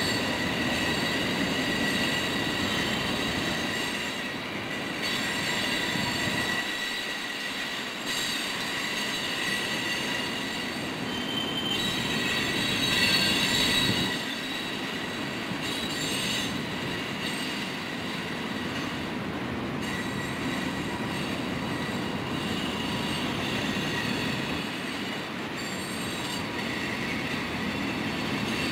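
Crude oil tank cars of a freight unit train rolling past, with wheels rumbling on the rails and a steady high-pitched squeal from the wheels on the curving track. The squeal is brightest about halfway through.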